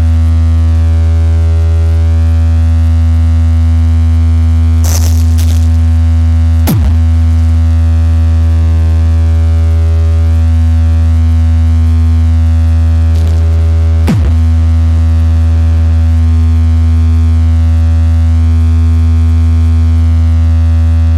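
DJ sound-check track played loud through a sound system: a steady deep bass tone with a ladder of higher overtones. Twice a sharp falling pitch drop sweeps down through it, and short hissing hits come shortly before each drop.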